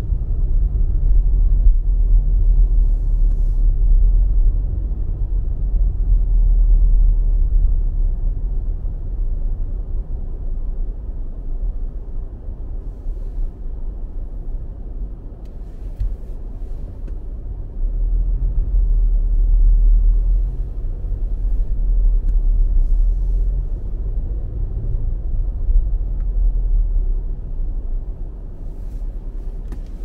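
Low, steady rumble of a car driving along a snow-covered highway, heard from inside the cabin: road and tyre noise with the engine underneath, swelling and easing slightly in level.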